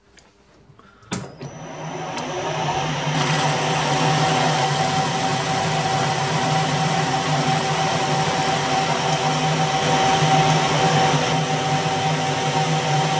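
Metal lathe switched on with a click about a second in, spinning up over a couple of seconds and then running steadily with a steady hum and whine while the tool faces off a rusty steel disc held in the chuck.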